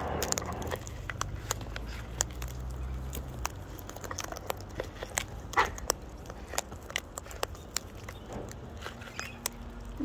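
Sulphur-crested cockatoos cracking and crunching seed in their beaks as they feed from a tub of mixed seed: a scatter of sharp, irregular clicks and crackles.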